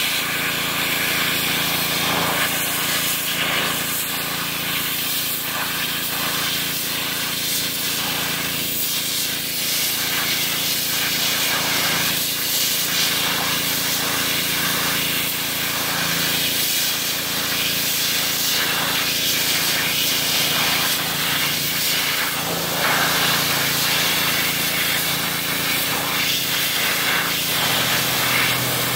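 Pressure washer running, its jet hissing steadily as it sprays water against a whitetail deer hide to strip the flesh off, with the washer's motor humming underneath.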